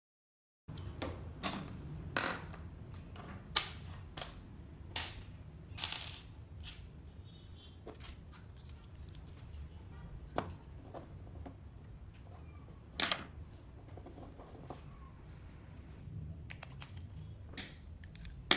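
Scattered light clicks and knocks of small screws, nuts and laser-cut wooden kit pieces being picked up and set down on a table during assembly, over a low steady hum. It starts after a moment of silence.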